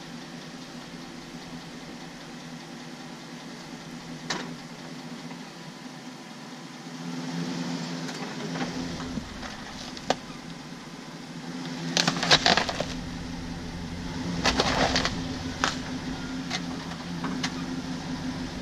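Chevrolet Silverado pickup's engine running at idle, working harder from about seven seconds in as the truck eases its front tyre onto a plastic duck decoy. Two clusters of sharp cracks and crunches come about 12 and 15 seconds in, with a few single clicks between.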